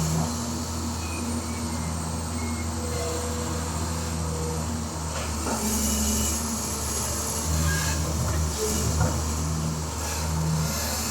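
An amphibious excavator's diesel engine running steadily with a low hum whose pitch and loudness rise and ease a little as it works, with a few faint knocks.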